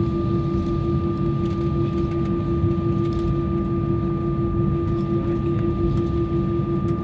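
Cabin noise inside an Airbus A320 while it taxis: the engines and airflow give a steady hum with a constant mid-pitched tone and a low rumble beneath.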